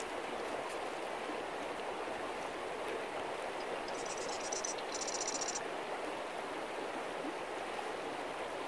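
Shallow, rocky mountain river running over stones: a steady rush of water. About four seconds in comes a brief high, rapid trill lasting about a second and a half.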